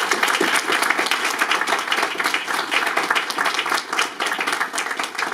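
Audience applauding: many people clapping at once in a dense, steady patter that begins to thin out near the end.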